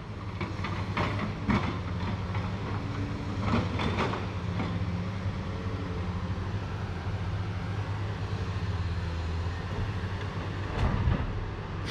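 Diesel engines of a log loader and a loaded log truck running steadily, with a few sharp knocks as logs are set onto the load.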